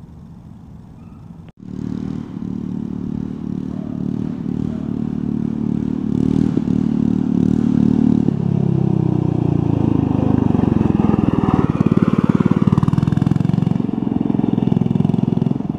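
Baja Warrior mini bike's 196cc single-cylinder engine running under throttle as the bike rides up and past, growing louder as it comes closer. The engine sound starts abruptly about a second and a half in.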